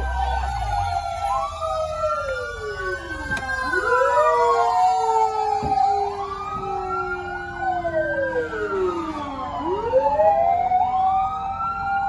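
Several fire truck sirens wailing at once, their pitches rising and falling out of step with each other.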